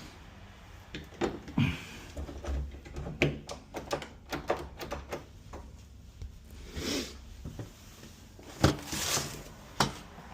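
Irregular clicks, taps and light knocks of door handle and lock hardware being handled and fitted, with two longer scraping rustles, about seven and nine seconds in.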